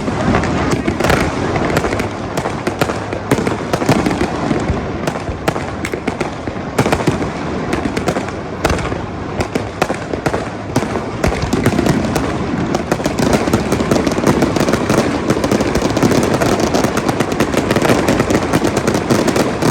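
Fireworks display going off continuously: a steady stream of bangs and rapid crackling, with no pause.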